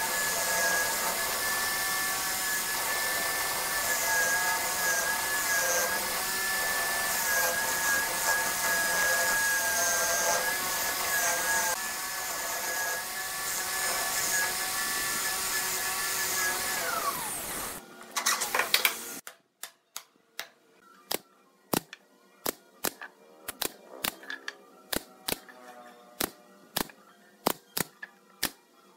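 Corded electric drill spinning a wooden disc as a makeshift lathe, its motor whining steadily while a chisel cuts the turning wood; about 17 seconds in the drill is switched off and its whine falls away as it winds down. After that, quiet background music with a clicking beat.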